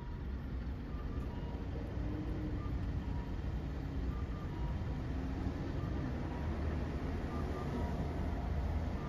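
Steady low rumble of a car heard from inside the cabin, with the faint electronic tones of a pedestrian crossing signal: short beeps in pairs, a higher note then a lower one, repeating about every second and a half.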